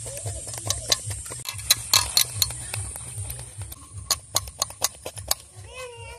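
Irregular light clicks and taps as a matchstick picks the soft flesh out of snap-melon cubes lying in a steel plate, the pieces and fingers knocking against the metal.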